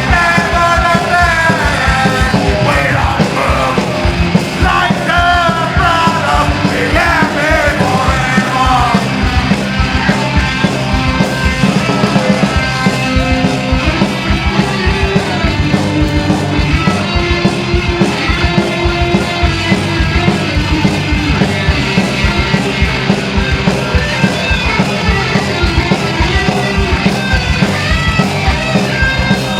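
Live punk rock band playing loudly, with shouted singing over roughly the first nine seconds, then the band playing on without vocals.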